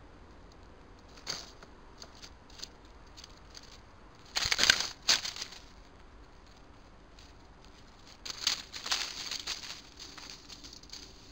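Small rodents (a wood mouse and a bank vole) scuffling and scurrying through dry leaf litter, in two louder flurries about four and eight seconds in, with fainter ticks and rustles between.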